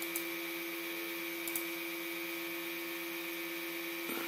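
Steady electrical hum with a few fixed tones. Two faint clicks come in the first second and a half, and a soft short sound comes near the end.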